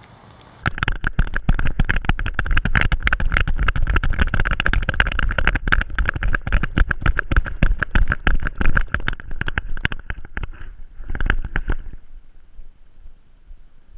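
A dog's metal ID tags clinking rapidly against the GoPro harness mount on his back as he moves along. It starts suddenly about half a second in and thins to a few scattered clanks near the end.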